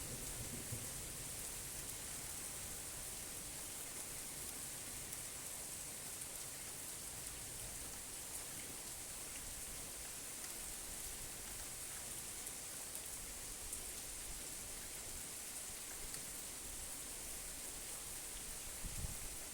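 Steady rain falling, an even hiss of drops, with a brief low thump near the end.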